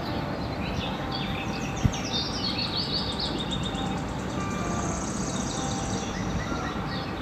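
Several birds chirping and singing over a steady low background noise, with a quick run of falling chirps about two seconds in and a high, fast trill around five seconds in. A single sharp click sounds a little before two seconds.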